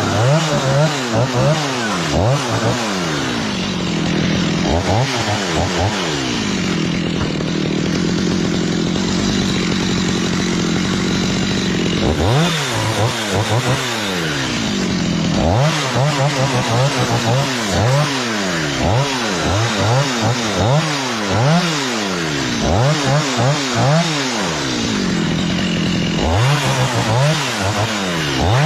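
Chainsaw cutting a coconut palm, its engine revved up and down in quick repeated bursts, with a few stretches of several seconds held at a steady high speed.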